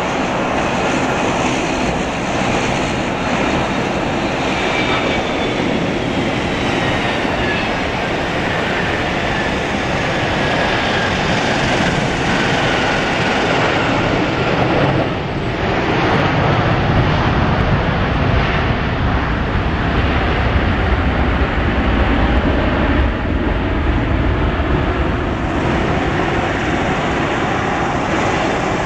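Boeing 767-200F jet freighter landing and rolling out. Its engine whine glides down in pitch over the first dozen seconds; then, from about halfway in, the engines rise to a deeper, louder rumble that eases off near the end, typical of reverse thrust braking the rollout.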